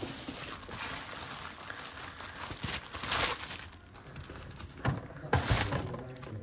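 Leather shoes stuffed with paper being handled and swapped on a display stand: rustling and crinkling, louder about three seconds in, then two knocks about five seconds in as a pair is set down.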